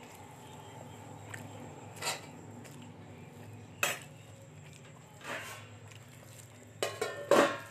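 A person eating by hand close to the microphone: chewing and lip smacks, with a few short sharp sounds spaced through, the loudest pair near the end. A steady low hum lies underneath.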